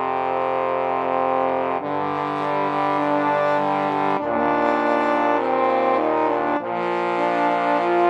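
Music of held brass-like chords, several notes sounding together, each chord held steady and switching to the next about every two and a half seconds.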